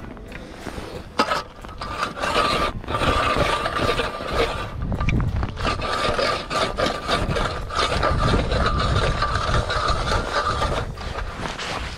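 Manual hand-cranked ice auger boring into lake ice, its steel blades grinding and scraping steadily as it is turned. It starts about a second in and eases off near the end.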